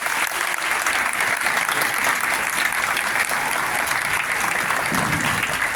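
Audience clapping steadily for a list of award recipients, a dense patter of many hands with no lulls.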